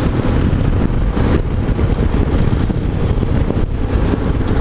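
Wind noise on the microphone of a moving motorcycle, over the Yamaha XTZ 250 Ténéré's single-cylinder engine running steadily at road speed.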